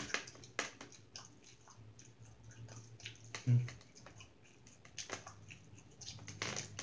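A person chewing a mouthful of pork soup: scattered wet mouth clicks, with one short, louder low sound about halfway through.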